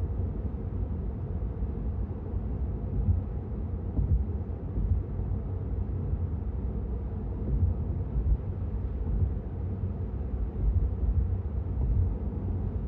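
Tyre and wind noise heard inside the cabin of a Tesla Model 3 at motorway speed: a steady low rumble with small bumps now and then. The car is electric, so there is no engine sound under it.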